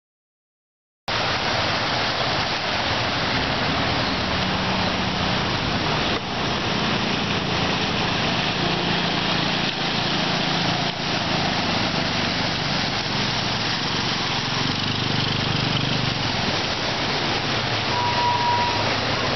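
Floodwater rushing over a road, a steady loud wash of noise starting about a second in, with the low hum of vehicle engines as traffic wades through; a motorcycle rides through the water near the end.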